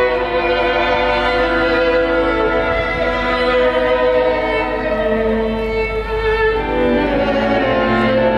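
Music: a slow melody of long held notes, with the pitch changing every second or two.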